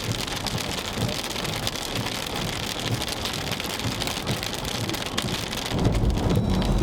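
Heavy rain pelting a moving car, many fine drop hits over a steady wash of noise, with a low rumble growing louder near the end.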